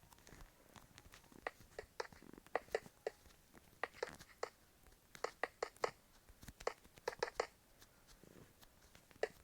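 Eating and food-wrapper noises: an irregular run of short, sharp crunches and crackles, some bunched in quick clusters.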